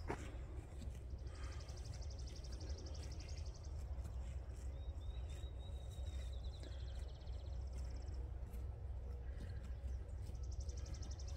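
Songbirds singing high, rapid trills, one early, one in the middle and one near the end, over a low steady rumble.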